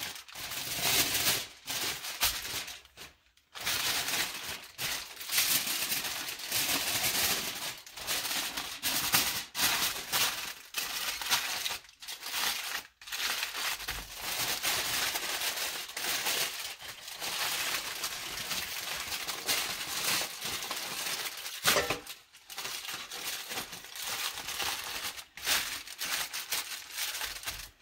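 Aluminium foil crinkling and crackling as hands fold it over and press it down around a wrapped fish, going on and off with short pauses.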